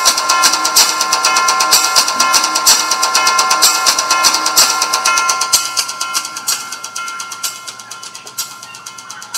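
Background music in the style of Nashik dhol drumming: fast, steady drum strokes over sustained tones, fading down over the last few seconds.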